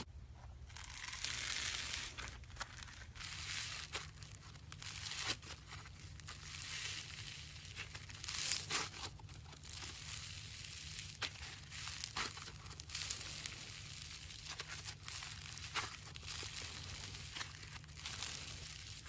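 Hands squeezing and stretching slime, giving a continuous run of crackly, crinkly pops and squishes over a steady low hum.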